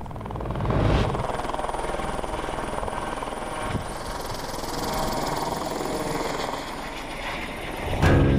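Helicopter running overhead: a steady fast rotor chop over engine and wind noise. Just before the end a louder, steady-pitched sound cuts in.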